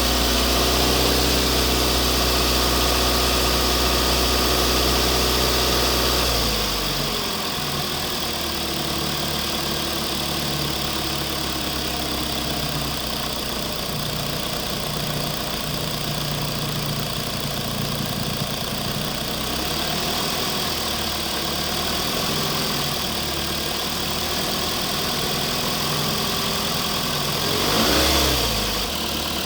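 Radio-controlled construction models running: a steady engine-like drone with several held tones. It changes about six seconds in to a quieter, rougher running sound, and near the end a brief surge rises and falls in pitch.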